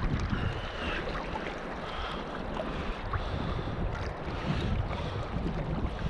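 Wind buffeting the microphone over water lapping and splashing as a gill net is pulled hand over hand out of the sea into a boat.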